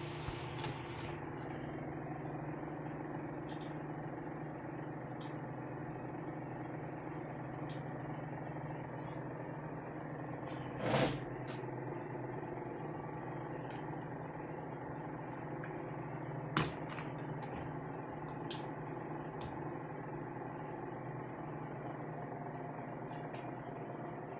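Steady machine hum of a PlayStation 3 running with a DVD just loaded into its disc drive, with a few scattered clicks, the loudest about eleven seconds in and a sharp one near the two-thirds mark.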